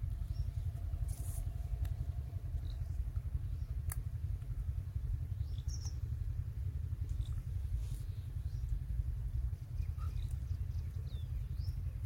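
Rural outdoor ambience: a steady low rumble with scattered short bird chirps, a few at a time.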